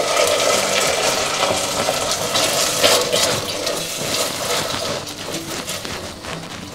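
Tomato pulp poured into a pot of onions frying in oil and butter, giving a watery sizzle, then stirred with a spatula. The sizzle dies down after about five seconds.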